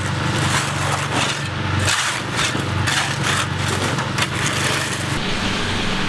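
Small gasoline engine of a portable concrete mixer running steadily, with a shovel scraping and scooping stiff, gravelly concrete mix in irregular strokes.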